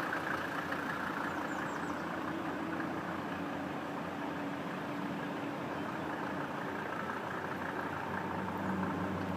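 Vehicle engine idling steadily, with an even rushing noise alongside it.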